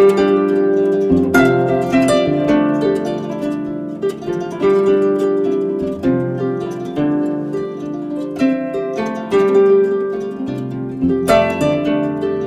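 Background music of plucked strings, harp-like notes picked out one after another and ringing off.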